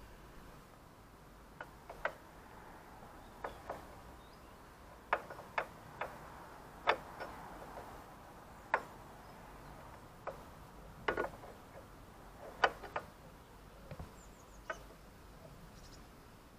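A steel hand tool clicking and clinking against a motorcycle side stand's return spring and bracket as the spring is hooked and stretched into place: about fifteen sharp metallic clicks at irregular intervals.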